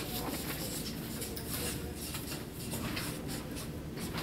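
Felt-tip marker writing on chart paper: a run of soft, irregular scratching strokes, with a light tap right at the start.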